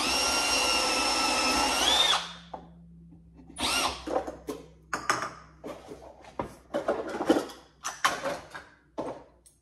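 Cordless drill running steadily at speed for about two seconds, boring a handle hole through a drawer front through the guide hole of a cabinet hardware jig. Its pitch rises just before it stops. Then comes a string of short, irregular knocks and rattles.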